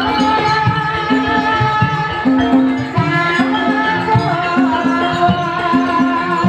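Javanese gamelan music accompanying an ebeg hobby-horse dance: pitched metallophone notes in a steady rhythm over hand-drum beats.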